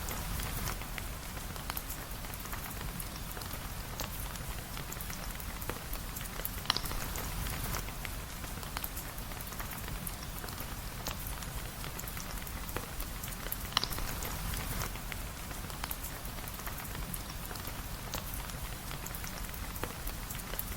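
Steady rain with a dense patter of small drop ticks and a low rumble underneath; twice, about seven seconds apart, a single sharper pop stands out above the patter.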